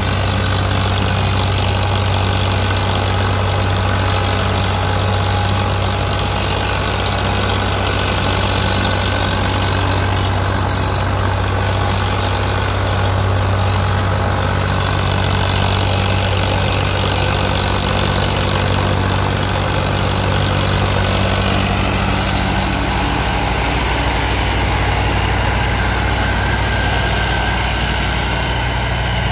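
Diesel tractor engine running steadily at an even speed, a constant low hum with no revving.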